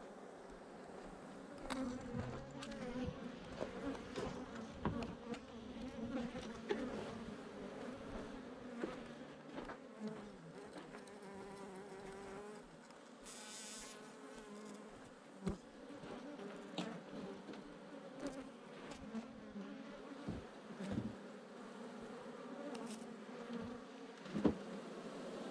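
A swarm of Africanized honey bees buzzing steadily around opened hive boxes, with scattered sharp knocks from handling the boxes.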